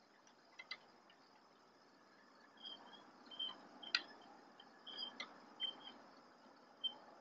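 Faint clicks and knocks of raccoons clambering on a wooden platform bird feeder, with a soft rustle over the second half. Short high chirps repeat irregularly through it over a low hiss.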